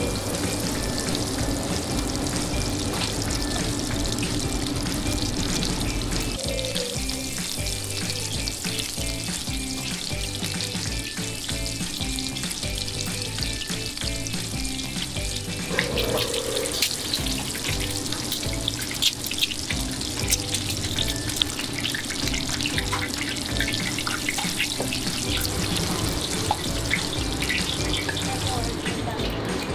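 Scallion pancake dough deep-frying in hot oil: a steady, dense sizzle, with a few sharper pops past the middle. Background music plays underneath.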